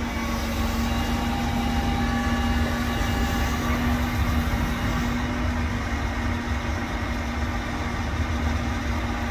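A heavy work truck's engine idling steadily, with a low rumble and a constant hum.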